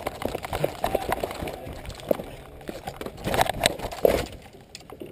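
A rapid, irregular series of clicks, knocks and crackles, loudest in a cluster about three and a half to four seconds in, then fading.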